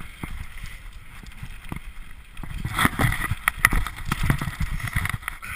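Mountain bike riding fast down a rough dirt trail: knobbly tyres rumbling over the ground and the bike rattling and clattering over bumps, the knocks coming thicker and louder from about halfway through.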